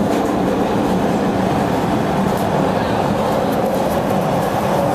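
PATH PA-5 rapid-transit car running through a tunnel: a steady, loud rumble of wheels on rail and car noise, with a few faint clicks.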